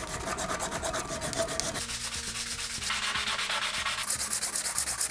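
Knife handle pieces being hand-sanded flat on a sheet of sandpaper: quick, even back-and-forth scratching strokes, several a second, turning brighter and hissier near the end.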